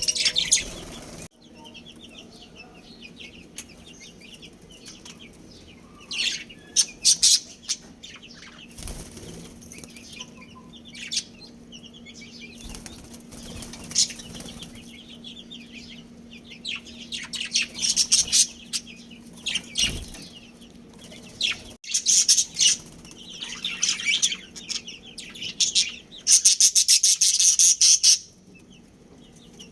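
Budgerigars chirping and chattering in quick, irregular bursts, loudest near the end, over a faint steady hum.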